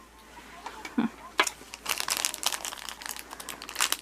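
Plastic packaging crinkling and crackling as a small toy pack is handled and opened by hand, with a soft bump about a second in.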